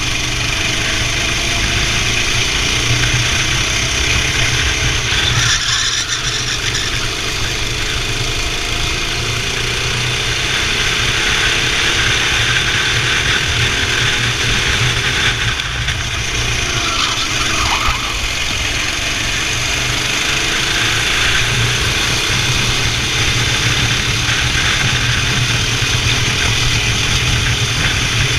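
Indoor racing kart engine running under load, its pitch rising and falling as the kart brakes and accelerates, with a steady rush of noise over it. There are brief dips around 5 seconds in and again at about 16 seconds.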